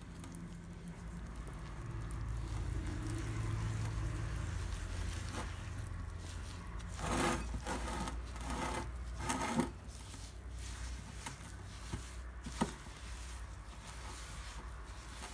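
Wire whisk stirring and scraping a thick semolina, sugar and ghee mixture in a glass bowl, in a few quick bursts of strokes, with light clicks of the whisk against the glass, over a low steady hum.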